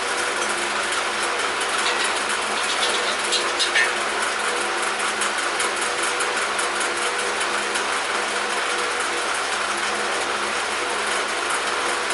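Steady hum of an electric shop fan running, with a few faint clicks and taps of small metal parts being handled.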